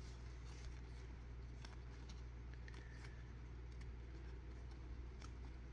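Faint, irregular soft clicks and slides of a stack of glossy baseball trading cards being flipped through by hand, over a steady low hum.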